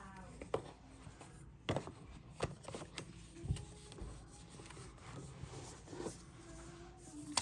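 Scattered light clicks and rubbing from handling a tablet and its packaging, a handful of separate taps over several seconds.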